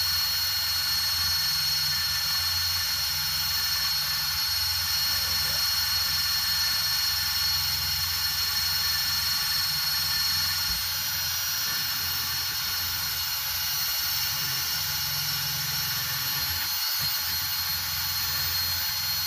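Cordless drill spinning a wire brush against an aluminium transmission housing, scrubbing off old RTV sealant. The motor runs steadily under light load with a constant high whine.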